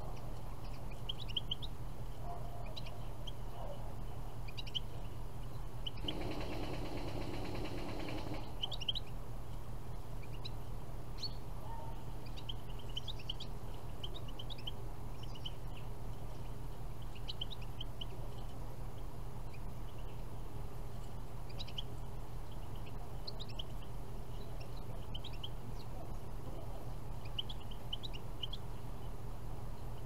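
European goldfinches calling: short, high chirps and twitters scattered throughout, over a steady low hum. A brief rushing noise comes about six to eight seconds in.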